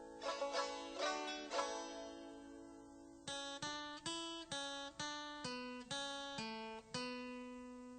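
Music played on a plucked acoustic string instrument, with a few strummed chords and then a run of single picked notes, each ringing out and fading.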